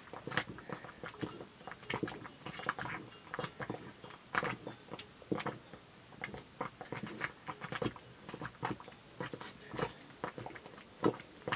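Wooden paddle stirring thick porridge in a metal pot over a wood fire: irregular sticky slaps and knocks of the paddle against the pot, several a second.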